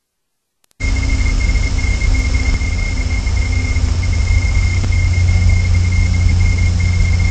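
Steady noise from a nest-camera microphone: a low rumble and hiss with a thin, steady high-pitched whine running through it. The sound is cut out for about the first second, then comes back abruptly.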